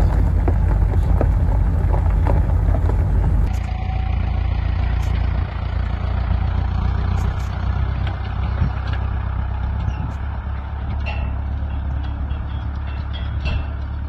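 Steady low rumble from inside a moving vehicle's cab. About three and a half seconds in, it cuts to the steady low running of a farm tractor out in the field, with a few faint clicks.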